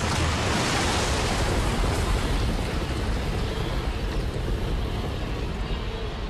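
Wildebeest herd stampeding away from the water's edge: a sudden rush of hooves on dry, dusty ground that starts at once and slowly fades.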